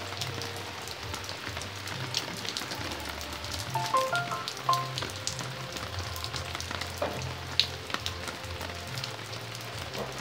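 Steady rain falling on garden plants and stone paving, with the patter of single drops striking broad leaves. A few short pitched notes sound about four seconds in.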